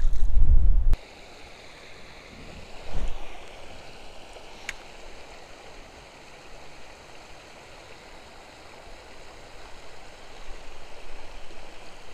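Creek water spilling over a small weir, a steady rushing. It opens with a loud low rumble that cuts off abruptly after about a second, and there is a thump about three seconds in and a single sharp click near five seconds in.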